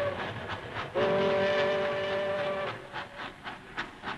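Steam locomotive whistle blowing one long, steady two-note chord in the middle, with rhythmic steam puffs, about four a second, before and after it.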